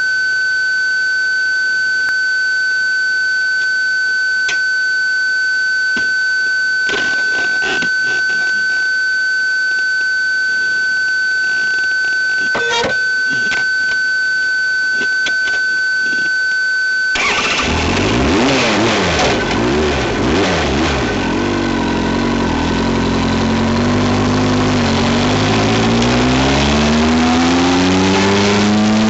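A steady high-pitched electronic tone with a few faint clicks. About two-thirds of the way through it cuts off and a vehicle's engine and road noise take over, the engine pitch rising and falling and then climbing steadily near the end as it accelerates.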